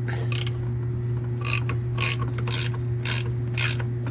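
A 15 mm ratcheting box-end wrench clicks in short runs as it is swung back and forth, backing off a nut on a brake master cylinder. After one run near the start, the runs come about two a second from about a second and a half in, over a steady low hum.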